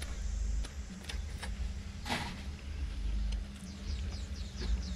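Outdoor background with a steady low rumble on the microphone, scattered light clicks and a brief swish about two seconds in, then a quick run of short, falling high chirps near the end.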